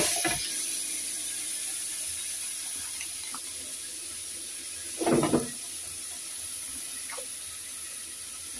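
Steady hiss of spiced lamb pieces searing in a hot pot without oil, with a brief louder sound about five seconds in.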